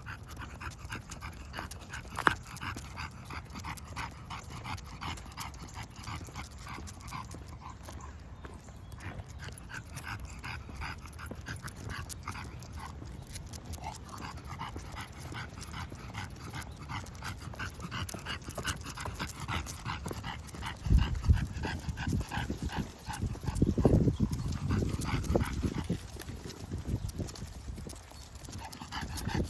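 English bulldog breathing heavily, panting in quick, rhythmic breaths. Several louder low thumps or rumbles come in the last third.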